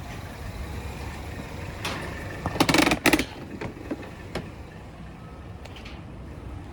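A truck engine idling, with a loud hissing burst, briefly broken, a little before the middle, followed by a few sharp clicks and knocks.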